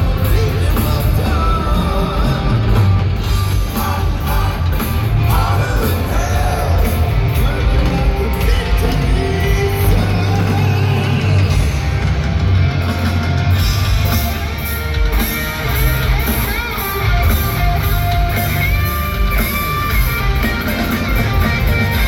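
Hard rock band playing live through a big PA: distorted electric guitars, bass and drums with a male lead vocal, echoing in a large, empty arena.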